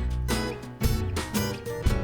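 Background music with acoustic guitar and a steady beat.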